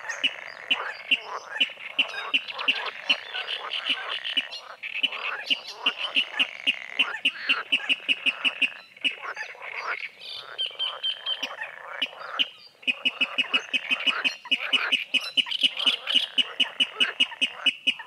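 Water rail calling: a long, rapid, even series of clipped, croaking notes, broken by a few short pauses.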